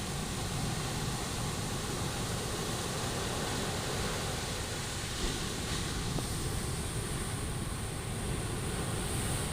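Sea waves washing onto the beach: a steady rush of surf with no breaks.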